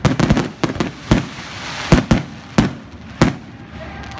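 Aerial fireworks shells bursting overhead: a rapid series of sharp bangs, crowded together at first and spacing out, the last loud one a little past three seconds in.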